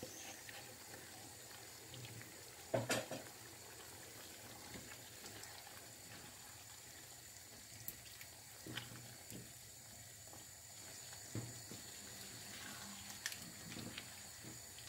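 Beef and potato stew bubbling faintly in a nonstick pan while a silicone spatula stirs the chunks, with a few soft knocks and scrapes against the pan, the loudest about three seconds in.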